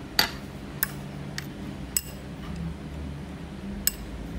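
A metal spoon clinking against a white bowl as oats soaked in water are stirred: about five short, light clinks spaced through the stirring.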